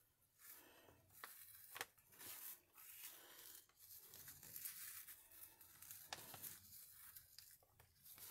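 Faint rustling and crinkling of sisal fibre being pulled apart and pressed onto a paper tag, with a few soft clicks.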